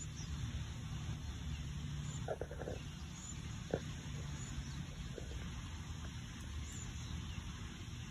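Outdoor background noise: a steady low rumble, with a few brief faint clicks between about two and five seconds in. The sharpest click comes a little before the middle.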